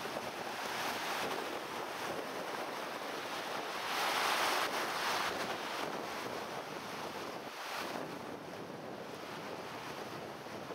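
Wind gusting across the microphone over choppy water lapping at the shore, a steady rushing that swells louder about four seconds in.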